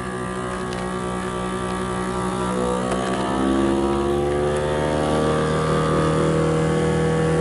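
FoodSaver V2440 vacuum sealer's pump running on its vac-and-seal cycle, a steady motor hum drawing the air out of a bag of meat. About three seconds in it grows louder and its pitch shifts as the bag pulls tight.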